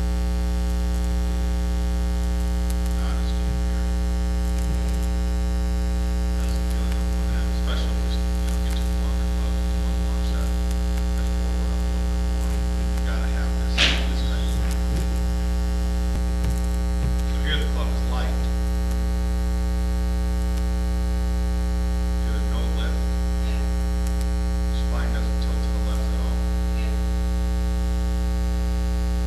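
Steady electrical mains hum with a buzzing ladder of overtones, the kind of ground-loop hum laid on a recording by its audio chain. A single sharp click sounds about halfway through.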